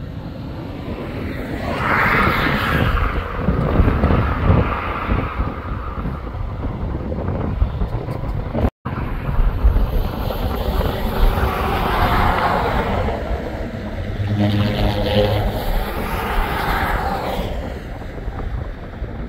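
Vehicles passing on a road one after another, each swelling and fading, with one giving a short low hum about two-thirds through, over wind noise on the microphone. The sound cuts out for an instant about nine seconds in.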